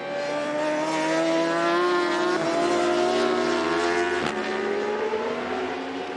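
Racing superbike engine at high revs, loud and close, its pitch climbing slowly as it accelerates. A single sharp crack about four seconds in, then the engine note carries on.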